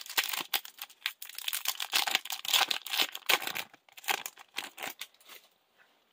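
A Yu-Gi-Oh! booster pack's foil wrapper crinkling and tearing as it is opened by hand and the cards are pulled out. The crackling stops about five and a half seconds in.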